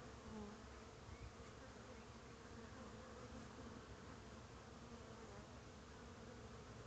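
Faint, steady buzzing hum of honeybees flying in and out at a wooden hive entrance.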